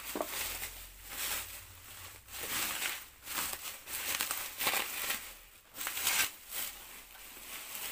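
Plastic bubble wrap crinkling and rustling as it is pulled and pushed aside by hand, in a series of irregular bursts.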